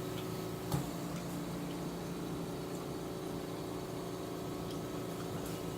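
Steady mechanical hum of a household appliance or fan, with a single small click about three-quarters of a second in.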